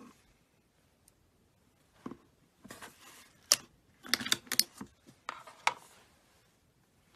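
Slime being handled, giving a run of sharp clicks, pops and crackles from about two seconds in until about six seconds in.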